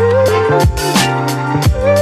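Background music with a steady beat: kick drum and hats about twice a second under a bass line and a sliding melody.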